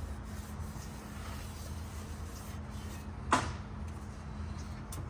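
A steady low hum with one sharp knock about three seconds in.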